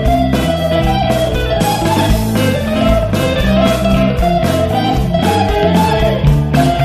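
Instrumental break of a rock band track: an electric guitar plays a bending melodic lead line over bass guitar and programmed drums.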